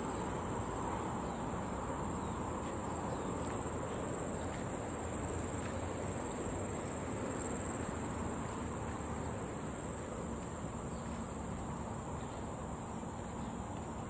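Insects in the surrounding vegetation keeping up one steady, high-pitched drone, over a low, even background noise.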